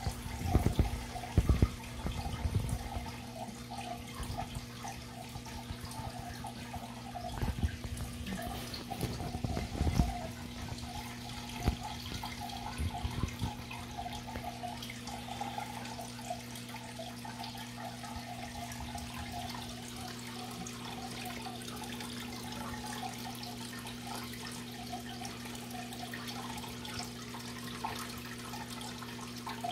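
Water running and bubbling in a fish tank, over a steady low hum from the tank's pump. A few dull knocks come in the first dozen seconds or so.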